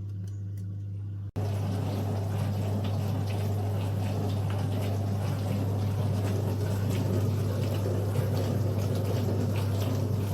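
Cookology CMDW2 countertop dishwasher running: water spraying inside the tub over a steady pump hum. The sound cuts out for an instant about a second in, then comes back louder.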